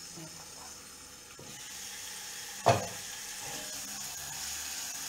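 Food sizzling steadily in a frying pan on the stove, a little louder from about a second and a half in, with one sharp knock about halfway through.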